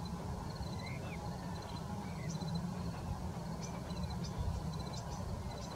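Faint bird notes, short sharp high calls and a few thin whistled glides, over steady rapid insect chirping and a low rumble.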